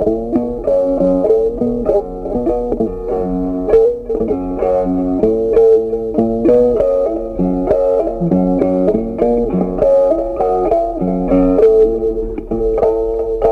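Background music played on plucked guitar, a steady run of short picked notes with a bass line.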